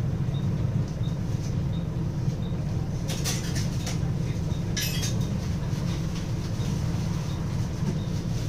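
Diesel engine of a Wright Axcess Floline single-decker bus idling while the bus stands still, heard from inside the saloon as a steady low rumble. A faint tick repeats about one and a half times a second, and two short hisses come about three and five seconds in.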